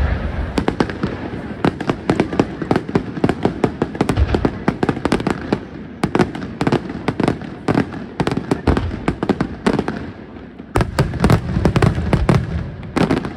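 Aerial fireworks display by Di Matteo Fireworks: a fast, unbroken barrage of shell bursts and crackling reports, several bangs a second. It thins briefly about ten seconds in, then returns with a louder run of bangs.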